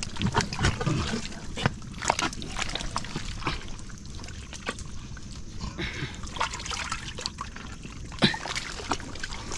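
Thick mangrove mud squelching and sucking as an arm is worked deep into a mudskipper burrow, with irregular short wet smacks.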